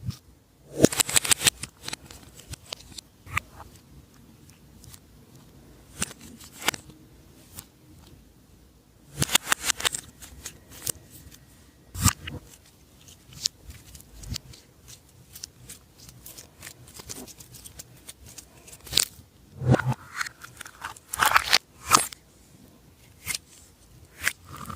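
Slime being squeezed and stretched by hand, giving bursts of sharp crackling and popping clicks in clusters, the biggest near the start, in the middle and in the last few seconds.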